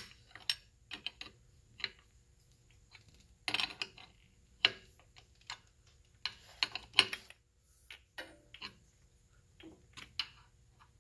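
Open-end wrench on the brass hose fitting of a propane demand regulator, tightening it: irregular sharp metal clicks and taps as the wrench is set on the nut, turned and repositioned.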